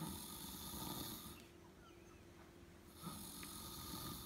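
A sleeping person snoring softly: two drawn-out snores with a quiet pause between them.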